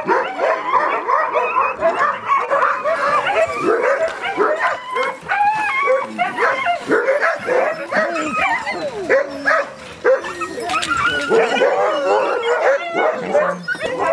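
A yard full of Alaskan huskies barking, yipping and whining all at once, many dogs' voices overlapping in a constant din.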